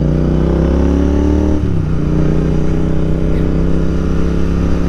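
Royal Enfield Continental GT 650's parallel-twin engine pulling under acceleration, its pitch rising, then dropping sharply at an upshift about a second and a half in and running steadily after that.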